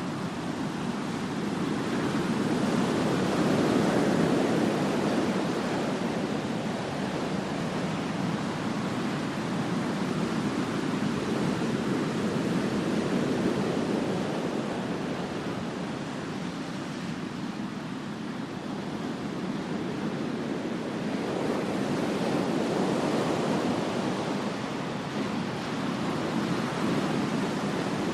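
Ocean surf: waves breaking and washing up the beach in slow swells that rise and fade every several seconds, with some wind on the microphone.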